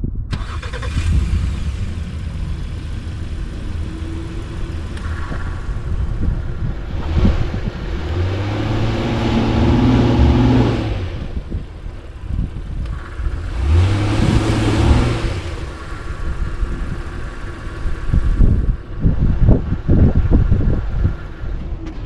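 Honda Passport's 3.5-litre V6 revving under load while the SUV sits stuck to the frame in a rut, its wheels spinning in the dirt without getting it out; this is a brake-lock attempt to find traction. The engine swells twice, a third of the way in and again past the middle, and drops back near the end.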